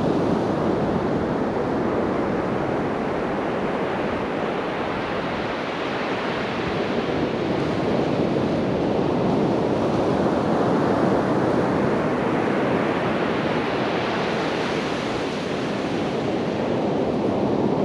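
Sea surf washing onto the beach, a steady rush of noise that swells and fades slowly over several seconds, with wind on the microphone.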